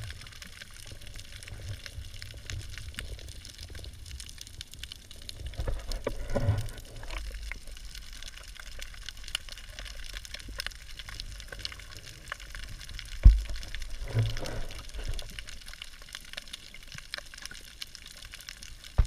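Underwater sound picked up by an action camera in its waterproof housing: a muffled wash of moving water with a fine crackle throughout and a couple of swells of low rumble. One sharp knock about two-thirds of the way through.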